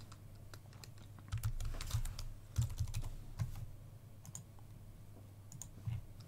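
Computer keyboard keys tapped in short irregular runs: light clicks with dull thumps, clustered in the first three and a half seconds, with a few more near the end.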